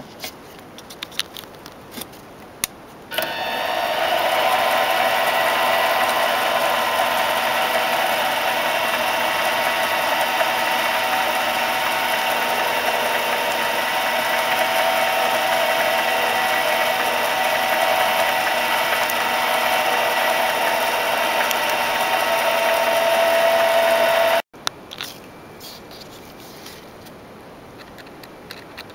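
Micro lathe switched on about three seconds in, its motor and spindle running with a steady whine while a centre drill is fed into a small piston blank, then stopping abruptly near the end. Light clicks of handling before and after.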